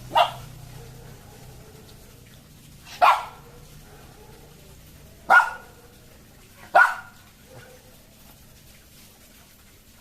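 Labrador puppy barking: four single sharp barks, one to three seconds apart.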